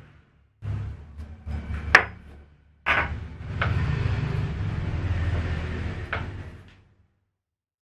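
Metal apron hardware and a steel punch being handled on a wooden worktable: a few sharp clicks and light knocks, the sharpest about two seconds in, then about four seconds of steady rustling noise that dies away near the end.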